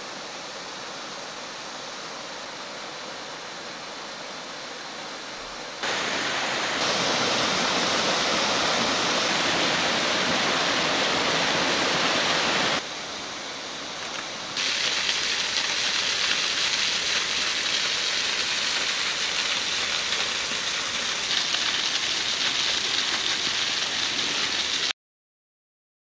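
Rushing water of a partly frozen waterfall and the stream below it, a steady noise that gets louder about 6 s in, drops briefly about 13 s in and comes back about 15 s in. It cuts off suddenly about a second before the end.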